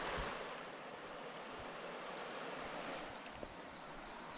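Steady rushing of a fast-flowing woodland stream, with one faint knock about three and a half seconds in.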